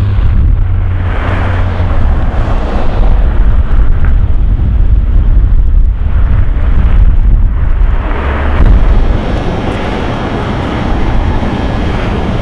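Strong blizzard wind buffeting the microphone: a loud, low, rushing noise that swells and eases with the gusts, dropping back somewhat a little after the middle.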